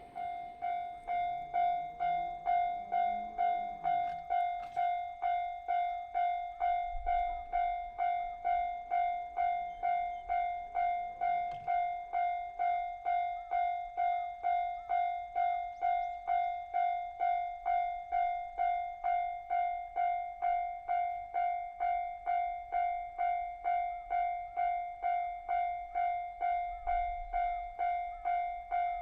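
Japanese railroad level-crossing warning bell starting up and ringing its steady 'kan-kan' ding, about two even strikes a second, the signal that a train is approaching.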